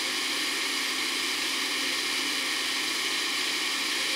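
Countertop blender running steadily at full speed, its motor whirring as it blends a thick chocolate malted milkshake of ice cream, milk and chocolate sauce.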